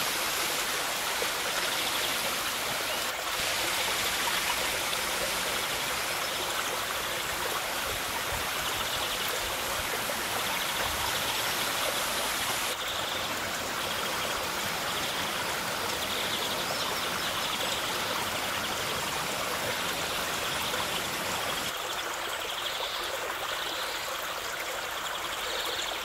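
Small waterfall pouring down a rock face and splashing onto rocks below: a steady rushing of water, its tone shifting slightly twice.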